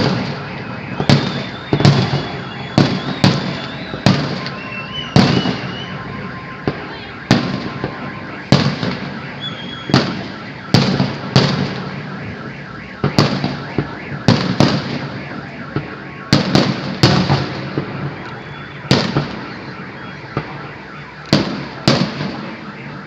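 Fireworks display: shells bursting in a rapid, irregular string of loud bangs, about one a second, each followed by a trailing echo.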